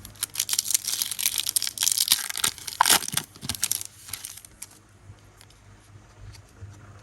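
Pokémon card booster pack's foil wrapper being torn open and crinkled: a dense run of crackling for about four seconds, then only faint scattered crinkles.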